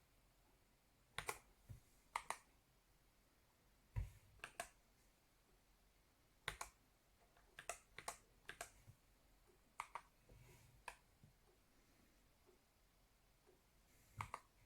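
Akko World Tour Tokyo R2 3098 mechanical keyboard: slow, scattered single keystrokes, many heard as a quick pair of clacks, with pauses of up to a few seconds between them. The loudest, about four seconds in, has a deeper thud.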